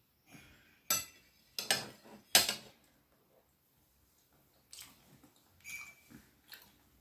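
Metal cutlery clinking against a ceramic plate: a few sharp clinks in the first half as the fork and knife are put down, the last the loudest, then a few fainter clicks.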